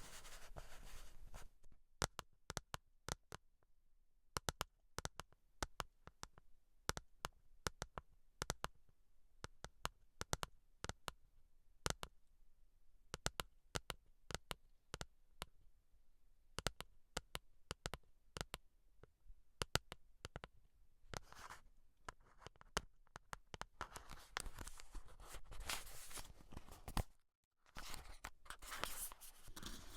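Close-up scalp-care sounds from hands and care products working on a head: scattered sharp sticky clicks and ticks for about twenty seconds, then denser scratching and rustling that cuts out briefly near the end.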